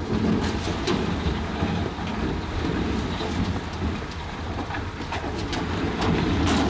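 Crawler bulldozer's diesel engine running steadily, with the clank and rattle of its steel tracks.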